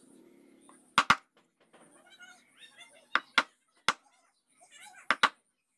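Wood-carving chisel struck with a mallet, cutting into a hardwood block: seven sharp knocks, mostly in quick pairs.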